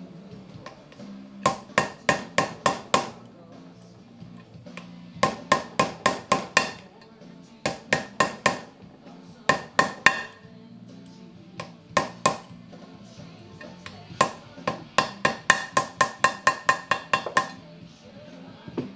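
Hammer tapping in quick runs of several strikes with pauses between, over background music.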